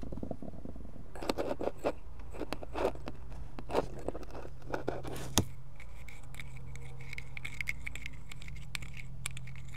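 A pink plastic spoon stirring wet cake mix in a cup, with irregular scrapes and clicks against the cup's sides, busier in the first half.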